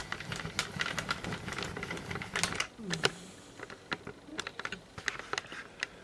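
Irregular clicks and light knocks: handling noise from a video camera being moved and adjusted.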